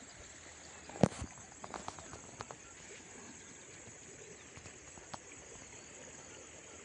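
A sharp knock about a second in, followed by a few lighter clicks and taps, over a faint steady high-pitched hiss.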